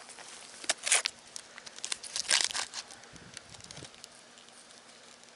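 Foil packaging of a vacuum-sealed coffee brick crinkling and crackling in a few short bursts as a hand grips and moves it, loudest about two seconds in.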